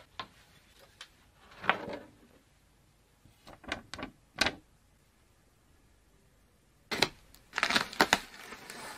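A cardboard gift box being handled and opened: scattered sharp clicks and taps of the lid and sleeve, with a denser run of rustling and clicks in the last two seconds.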